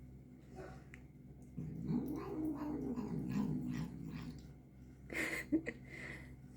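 Angry cat growling while it eats medicine gel: a low, wavering moan that starts about a second and a half in, and a short, louder, harsher outburst about five seconds in.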